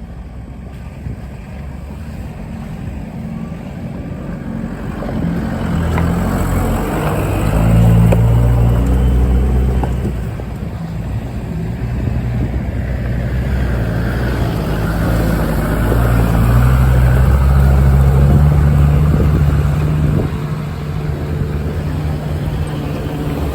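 4x4 engine driving along a rough track, working harder and louder twice, about a quarter of the way in and again past the middle, then easing back each time.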